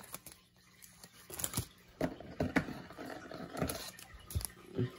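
Faint handling of a trading card: a few soft clicks and light rustling as the card is turned over in the fingers.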